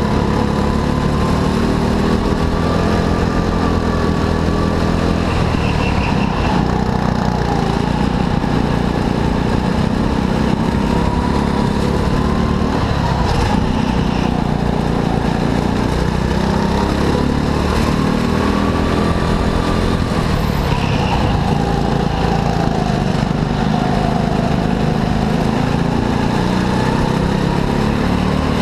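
Go-kart engine running hard, its pitch rising and falling every few seconds as the kart speeds up and slows.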